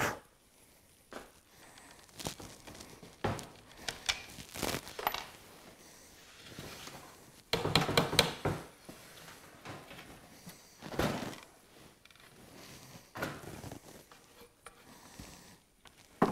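Workbench handling noise: scattered knocks, clicks and rustling as a trolling motor head, its wires and hand tools are moved about, with a quick cluster of sharp clicks about eight seconds in and a sharper knock near the end.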